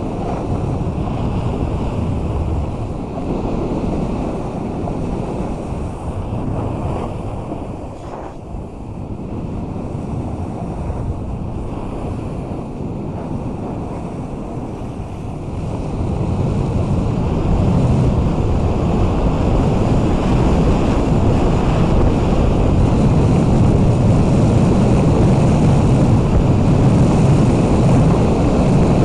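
Wind buffeting the microphone of a camera on a snowboarder riding downhill, mixed with the hiss of the snowboard sliding over packed snow. A steady rush that grows louder about halfway through.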